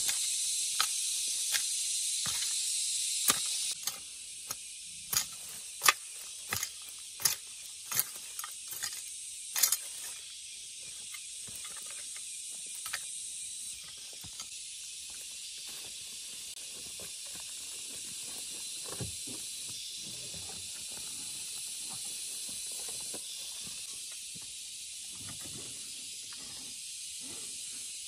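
A steady high hiss that drops in level about four seconds in, with a run of about a dozen sharp knocks or taps, roughly one a second, over the first ten seconds.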